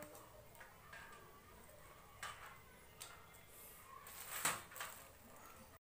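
Faint handling noises: a few soft rustles and light taps as insulated hook-up wire is handled over a metal amplifier chassis, the loudest about four and a half seconds in.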